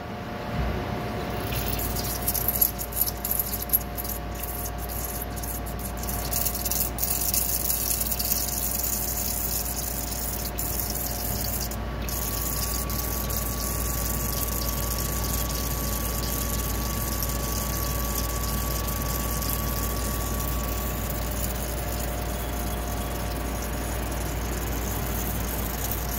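Belmont 30-amp CNC hole-popper EDM drilling with a thin tube electrode: spark-erosion crackle mixed with the hiss and splash of flushing fluid at the cut, over a steady low pump hum. A burst of sharp crackles comes a couple of seconds in as the cut gets going, then the sound settles to a steady hiss and hum.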